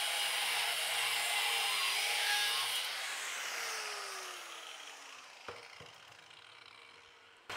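Corded angle grinder running with a steady whine while cutting an aluminium rod, then switched off, its pitch falling as the disc spins down. There is a single knock about five and a half seconds in.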